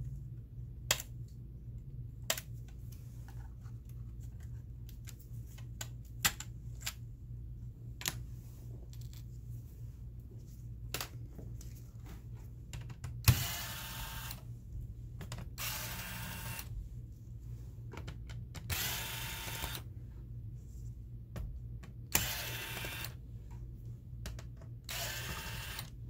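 Light clicks and taps of small plastic parts and screws being handled, then an electric screwdriver running in five short bursts of about a second each, backing out the screws of a laptop's bottom panel.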